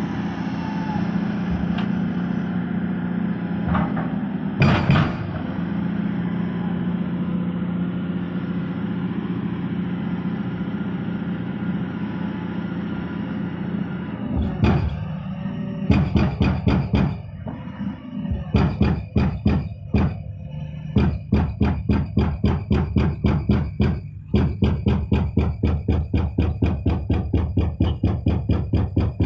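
Background music with a steady percussive beat. The beat sets in strongly about halfway through, at roughly three strokes a second, over a sustained droning layer.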